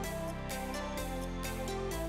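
Background music with a steady electronic beat: sustained synth notes over a bass line, with a percussive hit about every half second.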